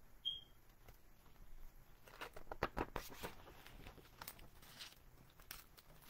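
Picture-book page being turned by hand: a run of paper rustles and crackles lasting a few seconds, preceded by a brief high-pitched blip.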